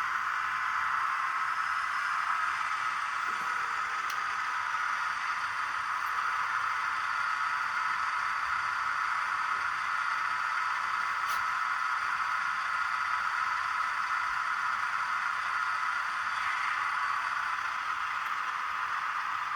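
ESU LokSound decoder playing its Budd RDC sound file through the tiny onboard speakers of N scale Kato RDC models: a steady diesel engine sound with little bass and a hissy edge.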